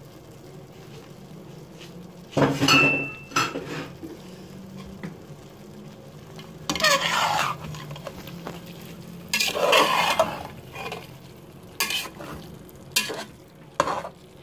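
A metal slotted spatula scraping and stirring through rice in a cooking pot as diced apple and orange are mixed in. It comes in three longer scraping passes, then a few short single strokes near the end.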